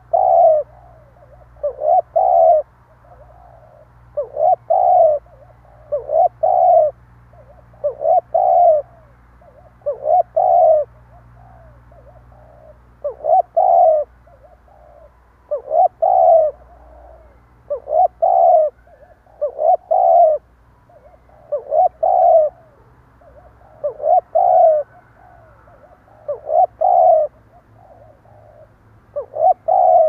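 Spotted dove giving its stuttering coo over and over: short, broken double coos about every two seconds.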